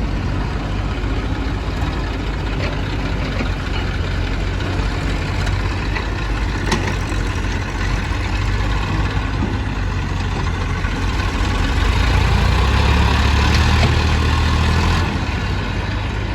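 Heavy diesel machinery engine running steadily, getting louder for about three seconds near the end before dropping back, as under load. A single sharp click about seven seconds in.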